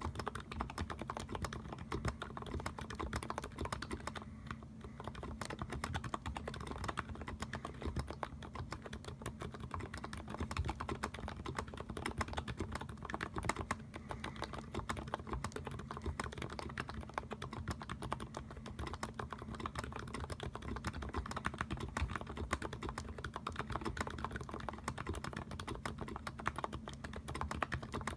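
Fast, continuous typing on a gasket-mounted custom mechanical keyboard with an FR4 plate, Krytox 3204-lubed Healios linear switches and GMK doubleshot keycaps. It is a dense, unbroken stream of keystrokes without pauses.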